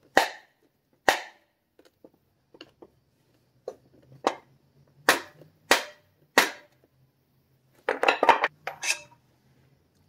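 Sharp metal knocks from a tool striking the seized jackshaft and oil-pump supercharger assembly to free it from a mini bike's engine: about seven single knocks spaced irregularly, then a quick flurry of several knocks near the end.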